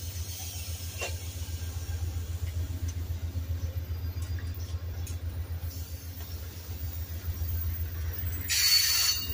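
Amtrak Superliner bilevel passenger cars rolling slowly past, a steady low rumble. Near the end comes a brief hiss lasting under a second.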